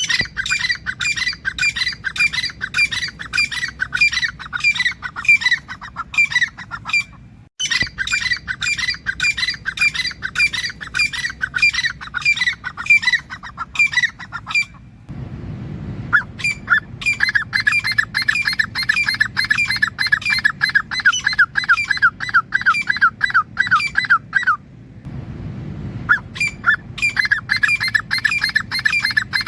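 Grey francolin (teetar) calling: long runs of short, squeaky calls repeated at about three a second, broken by brief pauses.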